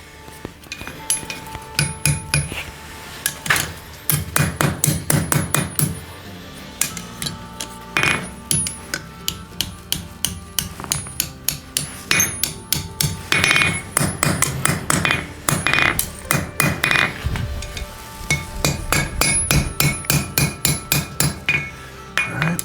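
Hand hammer striking mild steel on an anvil in quick runs of blows with a bright ring after each, with short pauses between the runs while the fiddle-head scroll is being rolled.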